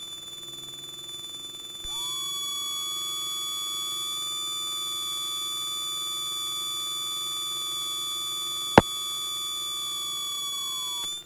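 A steady, high-pitched electronic tone with overtones, heard in the cockpit audio feed. It starts about two seconds in with a quick upward slide and slides down and stops near the end. A single sharp click sounds about nine seconds in.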